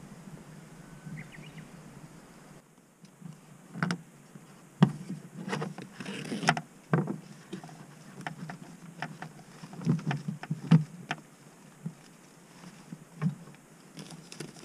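Hands handling a power cable at a BLUETTI EB70 portable power station: scattered clicks and knocks and a short rustle about six seconds in, after a faint hum for the first couple of seconds.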